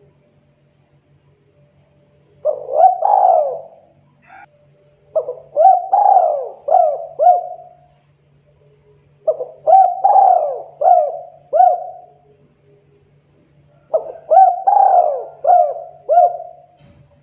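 Spotted dove (tekukur) cooing in four phrases a few seconds apart. The first is short, with two notes, and each of the other three runs to about five mellow notes. A faint steady low hum lies beneath.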